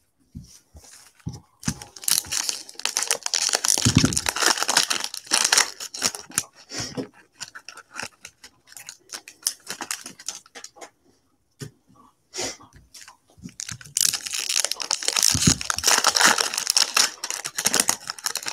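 Foil trading-card pack wrappers being torn open and crinkled, in two long crackling bouts, with scattered light ticks and taps from handling the packs and cards between them.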